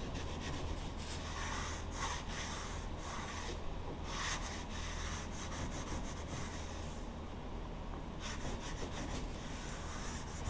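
Sandpaper rubbed by hand in repeated strokes along the freshly trimmed edge of a kitchen countertop, smoothing off the burrs left by the flush-trim router.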